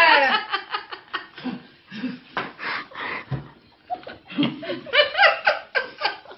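People laughing in quick repeated bursts. The laughter is loudest at the start and again about five seconds in.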